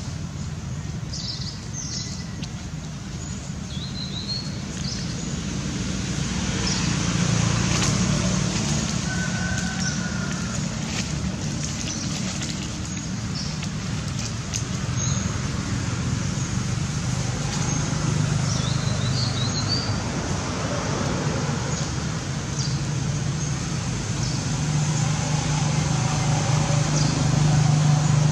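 Outdoor background: a steady low rumble, like distant road traffic, that swells and fades, with a few short, high bird chirps scattered through it.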